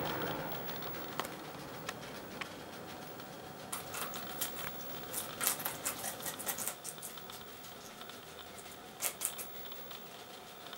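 Two guinea pigs biting and crunching into a raw red bell pepper: irregular crisp bites and chewing clicks, busiest from about four to seven seconds in and again around nine seconds.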